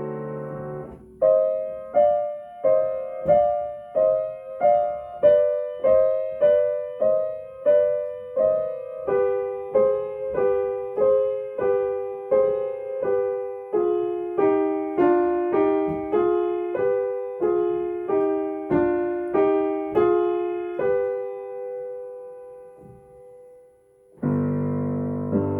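Solo piano playing a slow, even run of struck chords, a little under two a second, with the melody gradually stepping down. Near the end a held note dies away, and then a full, loud low chord comes in.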